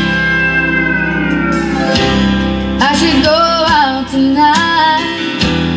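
A song with guitar and singing, played from an iPod through the restored radio's auxiliary input.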